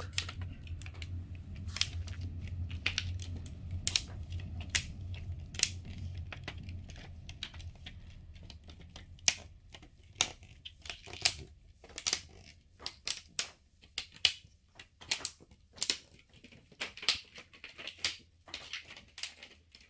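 Sharp little plastic ticks, one after another at an irregular pace, as the snap-in locks of an LED TV backlight's reflector sheet are pressed into place by fingertip; each tick is the sign of a lock seating properly. A low hum underneath fades out by about halfway.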